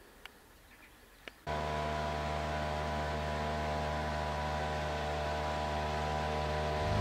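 Small outboard motor running steadily at speed on an inflatable boat, coming in abruptly about a second and a half in and holding an even pitch; before it, two faint clicks.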